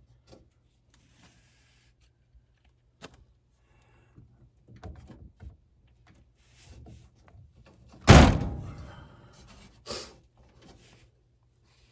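Small clicks and handling noises from working on furnace parts, with one loud thump about eight seconds in that rings on briefly, and a lighter knock about two seconds later.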